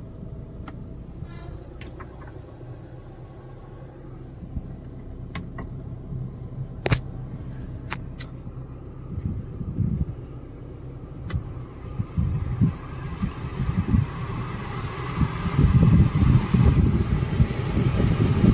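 Skoda Rapid 1.5 diesel engine idling as heard inside the cabin, a steady low hum, with several sharp clicks of switches and controls. In the second half a rushing blow with low gusts builds up and becomes the loudest sound.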